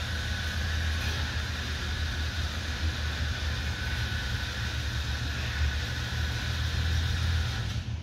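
Motorized hangar door running as it opens: a steady low rumble with a broad rushing noise above it, which stops abruptly near the end.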